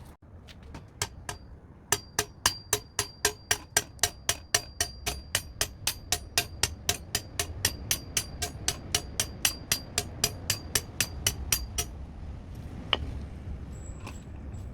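A hammer striking the bird feeding station's pole in a steady run of about forty blows, roughly four a second, driving it into the ground, with a faint ringing over the blows. The hammering starts after a few tentative taps and stops about twelve seconds in, followed by one last knock.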